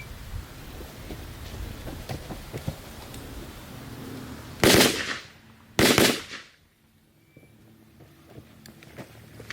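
Two loud gunshots a little over a second apart, each with a short echo, over fainter scattered clicks and pops during a timed shooting drill.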